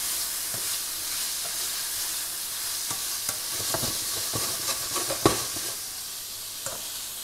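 Shrimp, onions and bell peppers sizzling in oil in a nonstick frying pan while a spatula stirs them, clicking and scraping against the pan. The loudest knock of the spatula comes a little after five seconds in.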